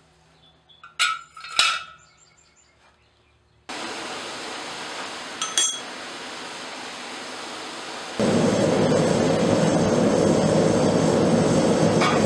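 A few sharp metallic clinks of steel, then a steady hiss comes in with one more clink, and from about eight seconds in the louder steady running of a gas forge burner heating the steel bar.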